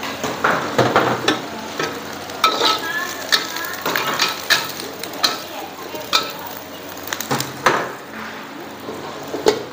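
Food sizzling in a hot wok while a metal spatula scrapes and clanks against it in quick, irregular strokes: stir-frying.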